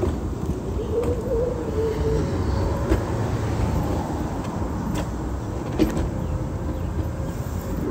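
Wheelchair rolling along a concrete sidewalk: a steady low rumble with a faint wavering whine, and a few light clicks about three, five and six seconds in.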